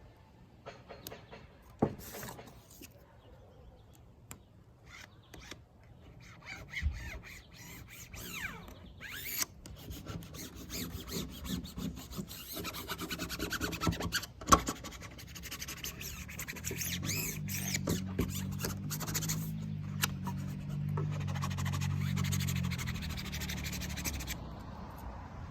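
Scratchy rubbing and scraping with scattered clicks as a vinyl sticker is worked onto a car's body and its backing peeled. A low hum joins in for several seconds in the second half.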